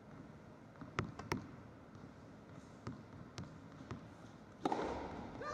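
A few sharp, echoing taps of a tennis ball bouncing on an indoor carpet court, then near the end a sudden louder burst with a voice in it.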